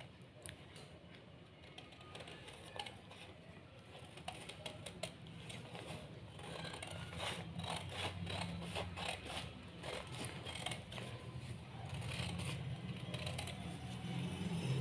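Scissors cutting through paper: a run of quiet, uneven snips and paper rustles, over a low hum that grows louder about six seconds in.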